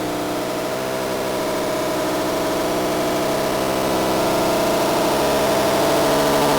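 A dense, hissing wall of noise with several steady tones beneath it, slowly getting louder.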